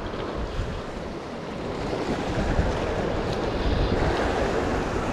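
Wind buffeting the microphone over the steady wash of surf against rocks.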